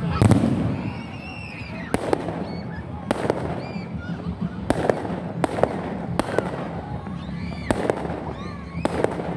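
Aerial fireworks shells bursting overhead: about eight sharp bangs at irregular intervals of roughly a second, the loudest just at the start.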